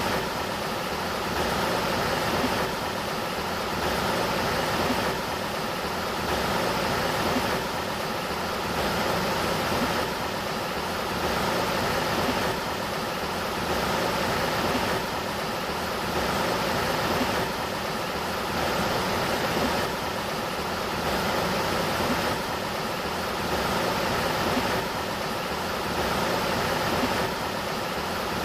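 Sacramento River water flowing, a steady rushing noise that swells slightly about every two and a half seconds.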